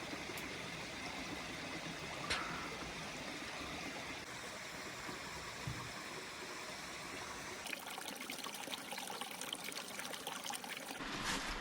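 Small creek trickling and running steadily. There is a sharp click about two seconds in, and faint quick ticking over the last few seconds.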